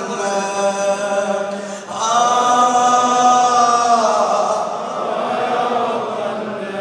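A man chanting a mourning elegy into a microphone over loudspeakers, in long drawn-out held notes, the longest from about two seconds in to four.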